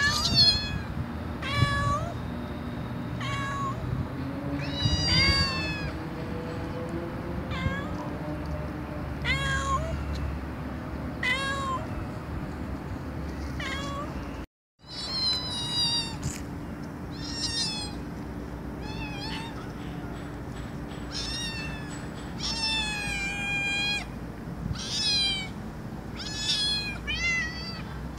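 Domestic cats meowing over and over, short calls about every one to two seconds, some rising and falling in pitch, over a steady low hum. The sound drops out completely for a moment about halfway through.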